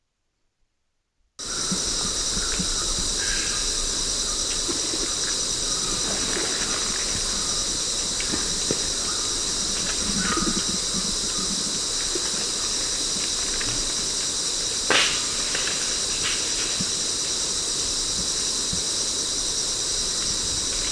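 Steady, high-pitched insect chorus starting about a second and a half in, with faint scattered chirps beneath it and one sharp click about fifteen seconds in.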